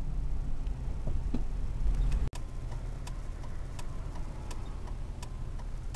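Steady low rumble of a car's engine and road noise heard from inside the car, with faint regular ticking. The sound breaks off sharply about two seconds in and resumes a little quieter, with the ticking continuing.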